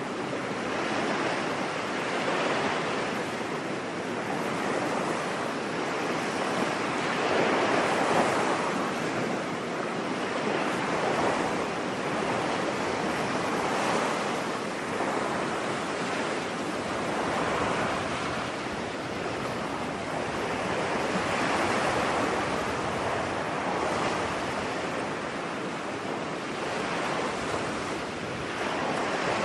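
Ocean surf on a beach: waves washing in continuously, swelling and easing every few seconds.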